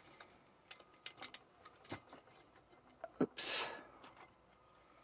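Faint handling clicks and scrapes of a whirligig's carved woodpecker body being held and shifted against a bark-covered log, with a sharper knock about three seconds in.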